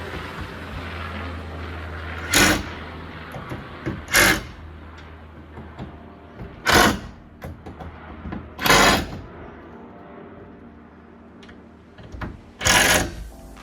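Power driver with a 4 mm hex bit running in five short bursts, each about half a second, as it tightens the hinge bolts of a sauna door.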